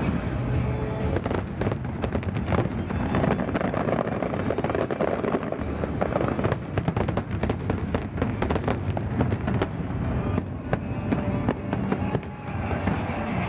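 Aerial fireworks display: a dense, continuous barrage of shell bursts and crackling reports, many bangs a second, with music playing underneath.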